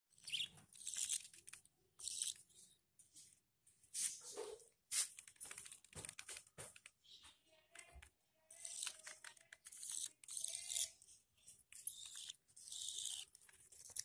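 Budgerigar chicks giving raspy, hissing begging calls in short clusters with gaps between them.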